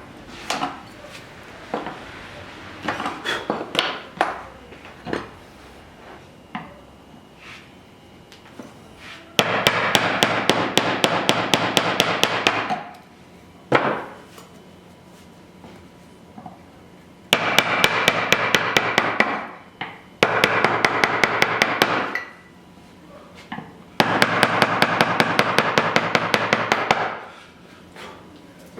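Woodworking hand tools on timber while cutting a lap joint: scattered light knocks at first, then four loud bursts of rapid, evenly repeated strokes, each lasting two to three seconds and stopping abruptly.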